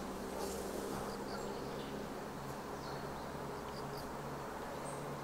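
A flying insect buzzing with a steady low hum, joined by a few faint short high chirps.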